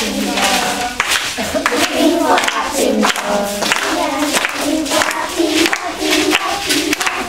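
A group of young girls singing a song together in unison, with a sharp beat about twice a second underneath.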